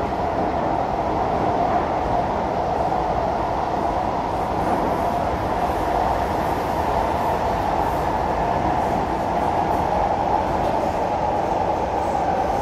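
Interior of an SMRT C151B metro train car running at steady speed underground: continuous rumble and wheel-on-rail noise with a steady mid-pitched drone, heard from inside the cabin.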